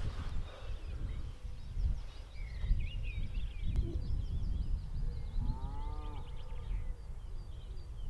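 Birds chirping and singing throughout, with one drawn-out call from a livestock animal a little past the middle. A steady low rumble of wind on the microphone lies underneath.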